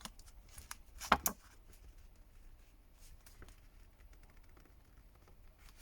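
A couple of sharp clicks about a second in, then a few faint ticks: small hand tools knocking against a smartphone and the work surface during disassembly.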